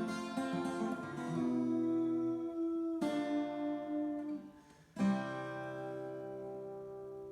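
Acoustic guitar playing the closing chords of a song. A final chord is strummed about five seconds in and left to ring, slowly fading.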